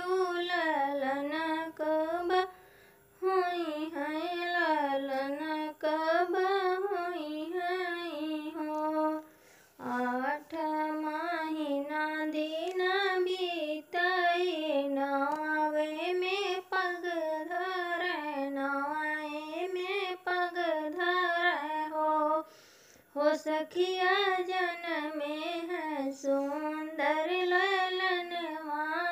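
A woman singing a sohar, a traditional North Indian folk song for the birth of a child, solo in a high, wavering voice without instruments. The phrases run long, with short pauses for breath between lines.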